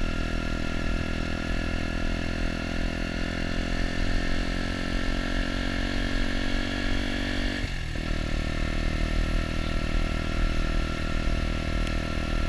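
Herald Maverick 125's 125cc four-stroke single-cylinder engine running as the bike is ridden along the road, heard from the rider's seat. The engine note shifts abruptly about eight seconds in.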